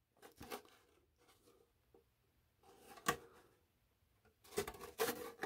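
Faint knocks and light handling noise from a plastic RC truck body being turned over in the hands and set down on a workbench, with one sharper click a little after three seconds and a cluster of knocks near the end.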